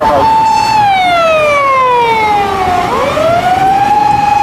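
Emergency vehicle siren wailing: a single tone falls slowly for about three seconds, then rises again and holds.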